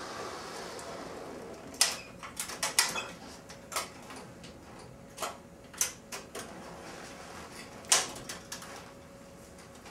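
A string of sharp clicks and clunks as a ceiling-mounted X-ray tube is pulled and swung into position, the loudest about two seconds in and near the end, with a faint steady hum starting a few seconds in.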